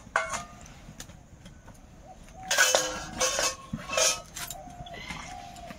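Metal kitchen utensils clinking and clattering a few times, loudest about two and a half to three and a half seconds in, with short bird calls in the background.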